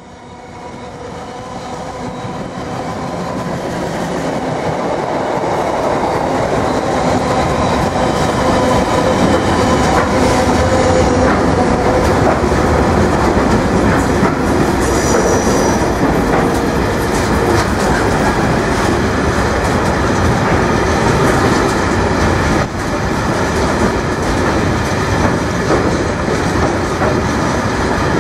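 Class 66 diesel locomotive, with its two-stroke V12 engine, growing louder over the first few seconds as it approaches and passes. It is followed by the steady rumble and clickety-clack of a long rake of ballast hoppers and engineering wagons rolling by, with a brief high wheel squeal about halfway.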